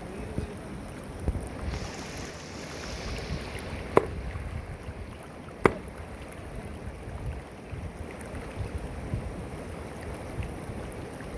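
Sledgehammer striking a rock in a shallow river twice, about a second and a half apart: two sharp cracks over the steady rush of the flowing water. The blows are struck to stun fish sheltering under the stone.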